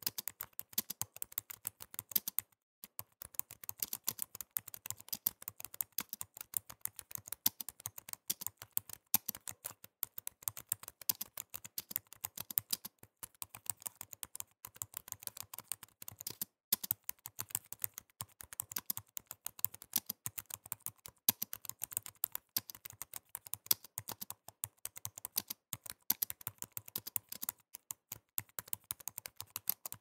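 Typing on a computer keyboard: a fast, steady stream of keystroke clicks, broken by a few short pauses.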